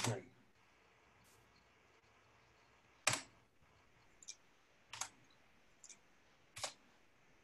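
About five separate clicks of a computer keyboard and mouse, roughly a second apart.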